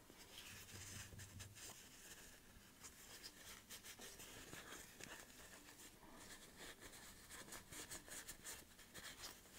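Faint rubbing and small irregular clicks of a fabric scrap wiping oil over a sewing machine's hook as it is turned in the fingers.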